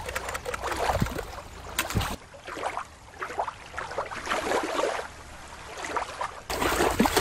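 Water sloshing and splashing in short irregular bursts, with a steady wash of surf-like noise.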